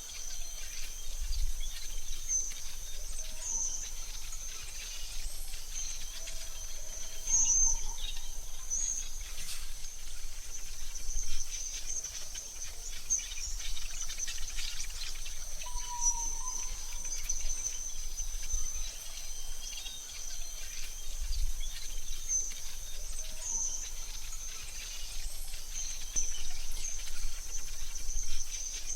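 Forest ambience: a steady high insect drone like crickets, with scattered short bird chirps and calls over a faint low rumble.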